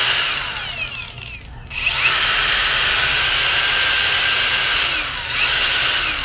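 Cordless angle grinder running loud in two long stretches, with a short dip about a second and a half in.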